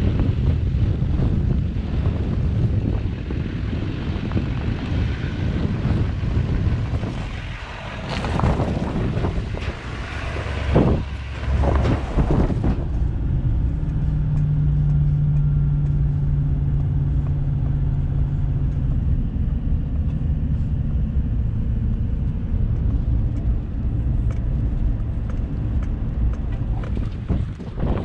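Pickup truck towing a livestock trailer on the road. First it is heard from outside with wind on the microphone, with some rise and fall in engine pitch. About halfway through it changes to a steady engine and road hum heard inside the cab.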